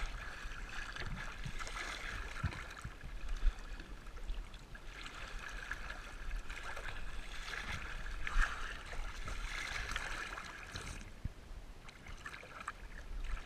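Swimming-pool water lapping and sloshing against a GoPro's waterproof housing at the surface, rising and falling in swells, with a few soft knocks of water against the case.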